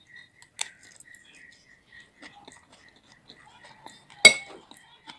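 Metal cutlery clinking and scraping against a ceramic plate while eating noodles, with soft chewing. A small clink comes under a second in and the loudest clink about four seconds in. A faint, high chirp pulses steadily in the background.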